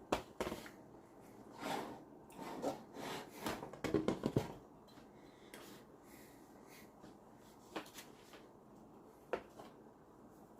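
Kitchen utensils scraping and knocking: a quick run of short scrapes and taps over the first few seconds, then two single light knocks.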